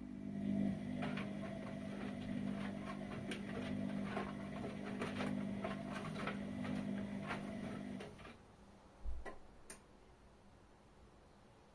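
Whirlpool washing machine running: a steady motor hum with irregular clicking and ticking for about eight seconds, then it stops. About a second later comes a low thump, then a single click.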